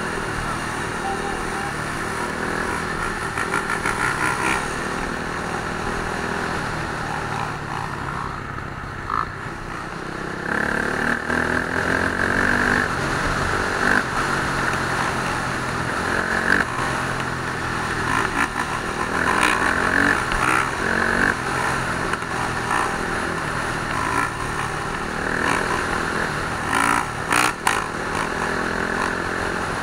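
Dirt bike engines running and revving, the pitch rising and falling as the throttle opens and closes.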